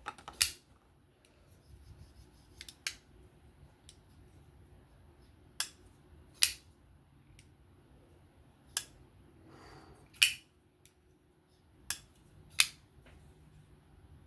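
Asher Spiro folding knife, newly fitted with Skiff pivot bearings, being opened and closed to test the action: about eight sharp metallic clicks at uneven intervals.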